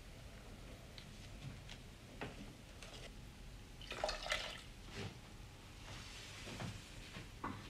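Faint kitchen sounds of metal pots and lids being handled on a wood-burning stove: scattered light knocks, a short burst of clattering and splashing about four seconds in, and a soft watery hiss near the end.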